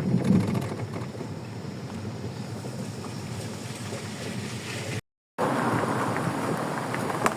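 Steady outdoor noise with wind buffeting the microphone. About five seconds in it drops out to silence for a moment, then a brighter hiss carries on.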